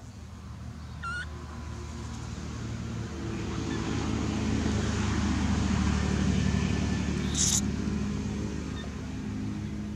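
A motor vehicle's engine passing by, swelling to a peak past the middle and then fading. A short high chirp comes about a second in, and a brief high hiss near the end.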